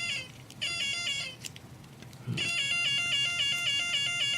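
Electronic alarm circuit of an Elenco AK-100 learn-to-solder kit sounding through its small speaker: a rapid repeating electronic tone, about five pulses a second. It cuts out twice and comes back, the second gap lasting about a second, as the hard-to-fit 9-volt battery snap makes and loses contact.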